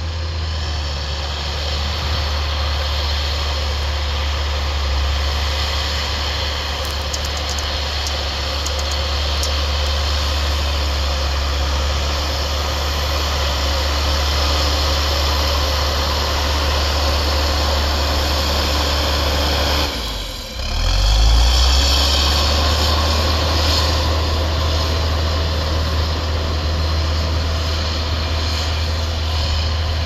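Diesel engine of a John Deere backhoe loader running steadily while it plows snow. About twenty seconds in it briefly drops away, then comes back louder as the engine revs up.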